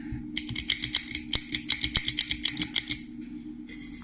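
Dodge Ram headlight switch housing, repaired with a microswitch inside, shaken hard by hand: a rapid clattering run of small plastic clicks for about two and a half seconds, testing that the repair holds.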